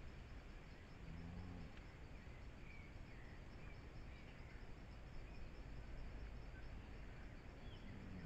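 Faint forest ambience: insects trilling in a steady pulsing chorus, with a few faint bird chirps. A brief low hum comes about a second in and again near the end.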